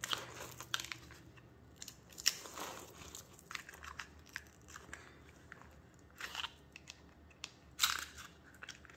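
Small clear plastic bag crinkling and rustling as it is handled, with scattered small clicks and crackles; louder crinkles about two seconds in and twice near the end.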